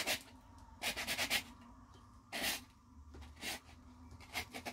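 A small metal part of a Garrard 86 SB turntable motor being rubbed by hand on sandpaper to take off glue residue. There is a quick run of short scratchy strokes about a second in, then single strokes about once a second.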